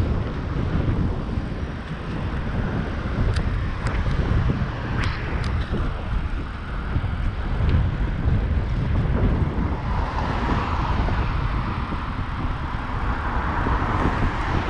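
Wind rumbling on the microphone of a camera riding along on a bicycle in city traffic, with the steady noise of passing road vehicles.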